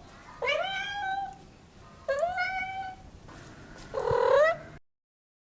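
Domestic cat meowing three times, about a second and a half apart, each call rising in pitch and then holding.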